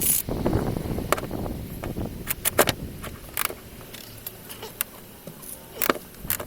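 Metal clinks and knocks from hand tools and car parts being handled, a handful of sharp hits spread out, with a scraping rustle over the first two seconds.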